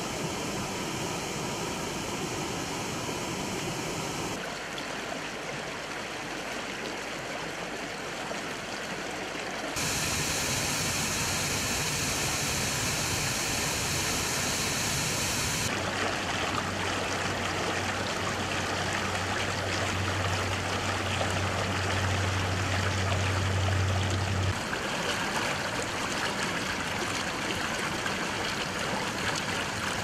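Rushing water of a waterfall and a fast, foaming stream in full spring flow, steady and changing abruptly in character several times. A low steady hum sits under the water for several seconds past the middle.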